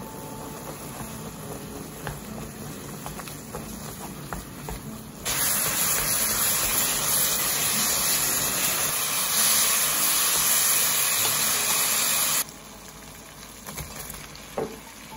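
Sliced pork neck sizzling in a frying pan as it is stir-fried in gochujang sauce: quieter pan noise at first, then a loud, even sizzle that starts suddenly about five seconds in and cuts off about seven seconds later. A couple of short knocks follow near the end as onion slices drop into the pan.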